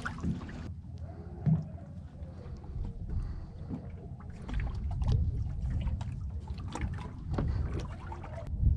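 Small boat sitting still on the water: a steady low rumble of wind on the microphone and water against the hull, with light clicks and knocks from handling the rod and reel.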